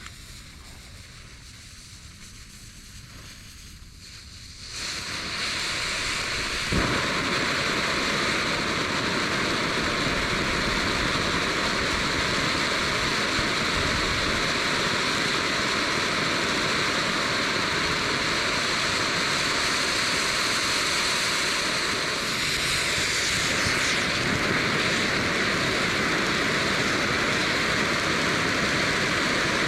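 Axel firework fountain burning: a steady, loud hiss of spraying sparks that starts about five seconds in and builds over a second or two, with one sharp pop shortly after.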